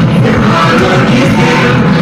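Loud music with a group of children and young people singing along.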